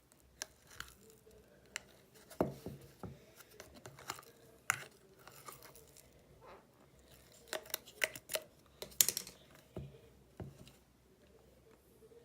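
Clear slime marbled with pink being squeezed and stretched by hand, giving irregular sticky clicks and pops, thickest and loudest a little past the middle.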